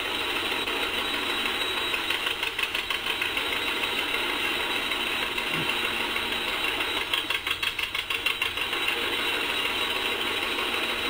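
LP-converted 1947 John Deere D two-cylinder engine running under belt load, with the slow, choppy popping exhaust of a "Poppin' Johnny"; the popping gets heavier about two seconds in and again around seven seconds as it takes a load.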